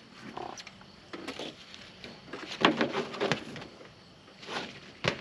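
Handling noises from a nylon buckle strap being fed under a kayak rack crossbar: irregular rustling and brushing of the webbing against the plastic kayak and the rack, with a sharp click near the end.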